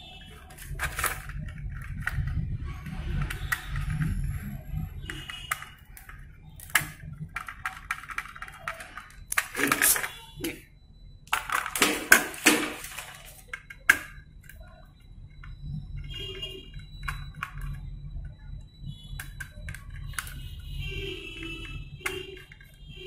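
Small screwdriver undoing the heat-sink screws on a laptop motherboard, with the board and its fan assembly handled on a table. Scattered clicks, short scrapes and knocks of small metal and plastic parts, over a low steady hum.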